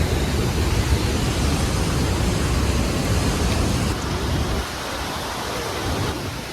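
Steady rush of the falling water at Vernal Fall, a loud even hiss. A heavy low rumble lies under it and drops away about four and a half seconds in.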